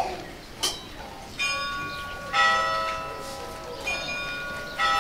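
Church bells ringing: two bells of different pitch struck in turn, about four strikes with long ringing tones. Two sharp clicks come in the first second.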